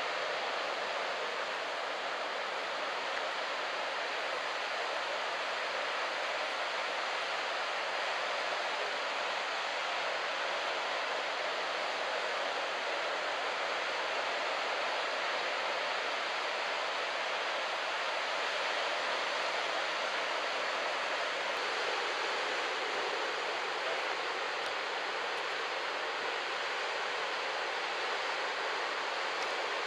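Steady, even wash of ocean surf on a beach break, with no single wave crash standing out.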